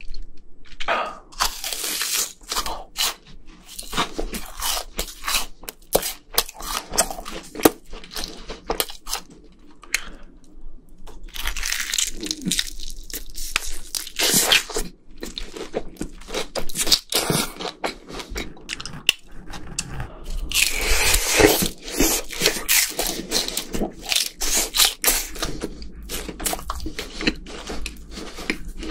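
Close-miked crunching and chewing of fried chicken: irregular crisp crunches as the coated fried drumstick is bitten and torn, with chewing between bites.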